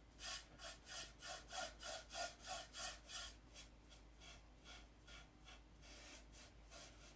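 Back-and-forth rubbing on a wooden board as stain is worked on and wiped off, about two or three strokes a second, growing fainter about halfway through.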